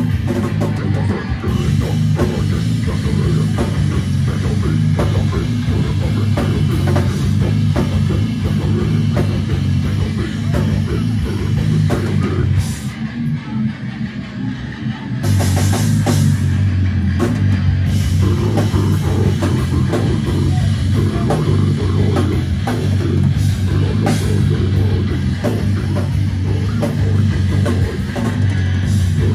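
Live heavy band playing loud: distorted guitars, bass and drums. About thirteen seconds in, the music thins out for a couple of seconds, then the full band comes back in.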